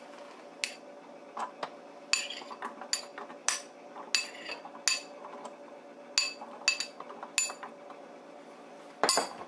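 Chickpeas dropped into a plastic food processor bowl, each landing with a sharp clink, about a dozen spread unevenly, then a quick cluster near the end, over a faint steady low hum.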